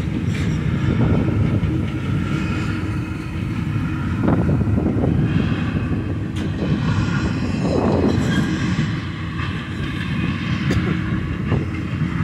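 Double-stack intermodal container train rolling past: a steady rumble of steel wheels on rail, with on-and-off high-pitched squealing and a few louder clanks about four and eight seconds in.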